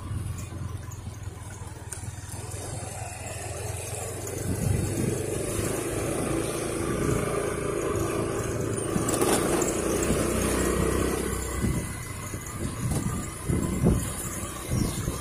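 Honda Click automatic scooter riding along a street, engine droning and revving up through the middle before easing off, with irregular low buffeting on the microphone near the end.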